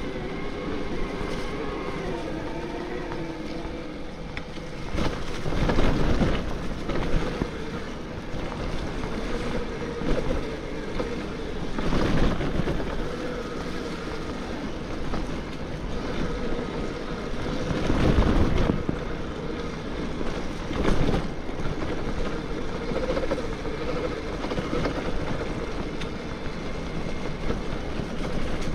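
Bafang BBSHD mid-drive e-bike motor whining under power, its pitch drifting up and down with speed, over wind on the microphone and tyre noise, with several louder rushing surges along the way.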